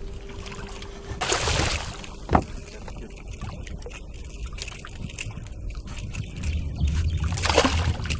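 Water sloshing and splashing against a fishing boat, with a sharp knock about two seconds in.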